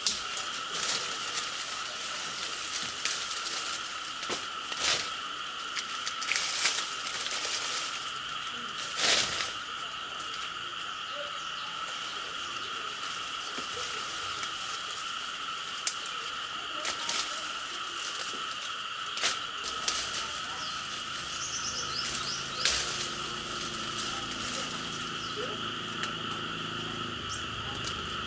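Steady insect chorus holding two even tones, with scattered sharp clicks and snaps over it.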